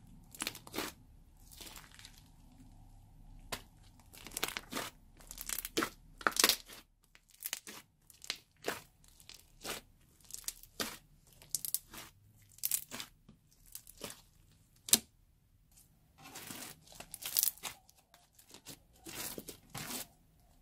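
Hand squishing and kneading lilac slime full of small foam beads, giving irregular wet crackles and pops, thickest in two spells about a third of the way in and near the end.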